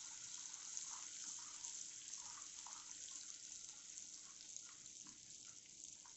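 Caramelised sugar and butter sizzling and bubbling in a nonstick pan as it is stirred: a faint, steady hiss dotted with small pops.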